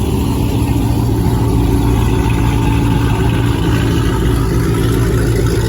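Car engine idling steadily, loud and close, with an even low hum that does not change.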